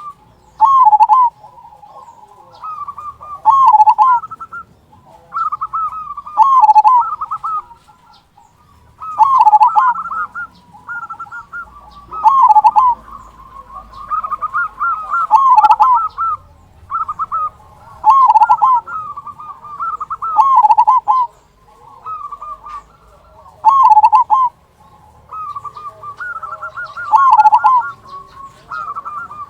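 Zebra dove (perkutut) cooing its song over and over: each phrase is a run of short coos that ends in a loud, big 'kung' note, and the phrases come about every three seconds.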